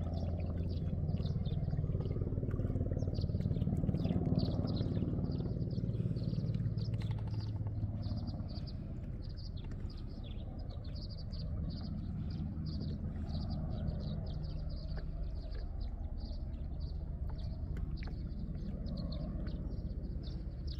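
Small birds chirping steadily in many short, quick calls, over a steady low motor hum that eases about eight seconds in.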